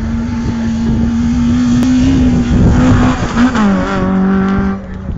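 Small hatchback rally car at full throttle, its engine note held steady at high revs. About three and a half seconds in, the note jumps briefly, then drops to a lower pitch as the car passes, and it fades near the end.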